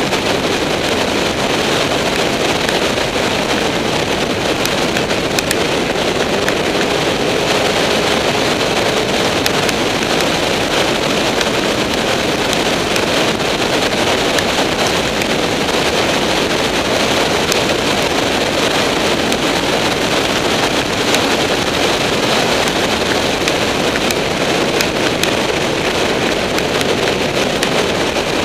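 Loud, steady wind rush over an onboard camera microphone on a motorcycle riding at speed, with the motorcycle's engine running underneath and one faint rising note about seven seconds in.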